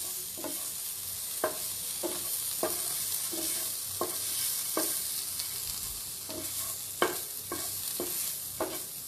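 Marinated chicken pieces sizzling steadily in a frying pan, with a spatula knocking and scraping against the pan at irregular moments, one or two knocks a second, as the pieces are turned. The chicken has finished frying.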